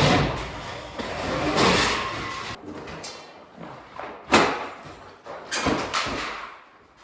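Sheets of wood wall paneling being pulled off and handled during demolition: scraping and clattering, with a sharp knock about four seconds in.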